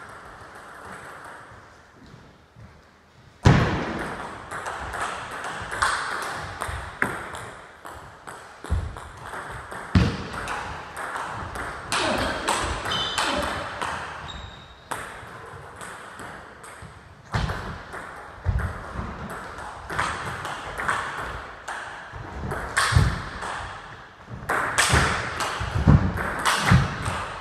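Table tennis rallies: the ball clicking off rackets and a Donic table in quick runs of hits. The first few seconds are quiet before play resumes.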